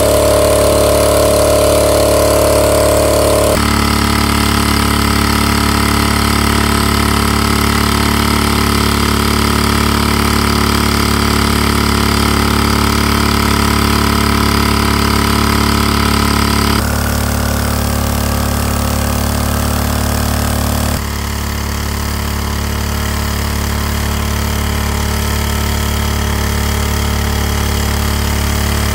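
Small engine-driven portable water pump running steadily, with water gushing from its outlet hose. The sound shifts abruptly in loudness and tone a few times.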